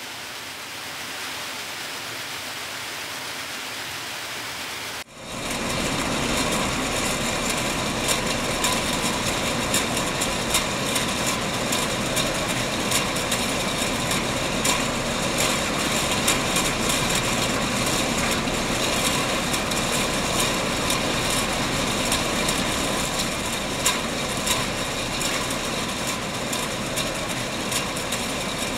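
For the first five seconds, a steady hiss. Then canning-line machinery runs with a steady mechanical hum and frequent irregular clinks and clatter of empty tin cans moving through the filler and along the conveyor.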